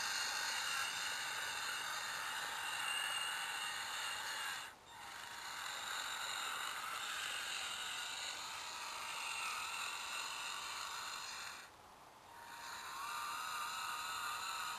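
Whine of the electric motor and gear drivetrain of a radio-controlled rock crawler on an HPI Crawler King chassis as it drives. The whine cuts out briefly twice, about five and twelve seconds in, and its pitch wavers near the end.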